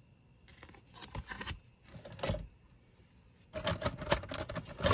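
Metal costume jewelry clinking and rattling as a hand rummages through a wooden box of brooches. A few scattered clicks come first, then a dense run of clinks in the last second and a half.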